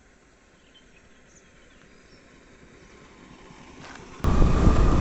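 Faint bird chirps and insect noise, slowly growing louder, then about four seconds in a loud, steady rush of motorbike engine and wind noise starts suddenly.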